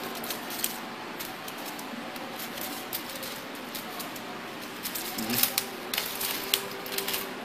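Scattered small clicks and crinkles from hands adjusting the foil roller and feed of a desktop hot stamping machine, coming thicker about five to seven seconds in, over a steady background hiss.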